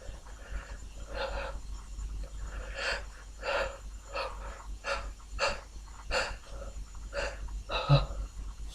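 A person sniffling and drawing short, sharp breaths through the nose, about eight in a row, as a sneeze builds up. The last, near the end, is the loudest.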